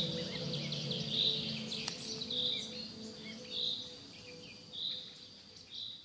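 Forest birds chirping: one bird repeats a short call about once every second and a bit, with scattered chirps from others over a steady high insect-like hum, all fading out. Faint low drone-like music lies beneath and fades away.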